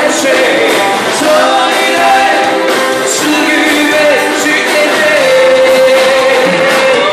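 Live rock band playing: electric guitars, bass, drums and keyboards behind a male lead voice, with one long held note in the second half.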